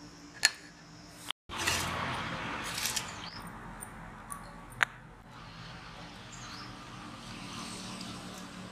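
A steel pot lid clinks once about half a second in. After a short break, steady outdoor background noise follows with a few faint bird chirps and another sharp click near the middle.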